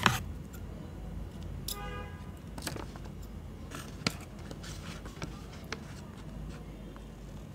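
Scissors cutting through a paper shipping envelope: quiet snips and paper rustling, with a sharp click at the start and another about four seconds in, and a short squeak about two seconds in.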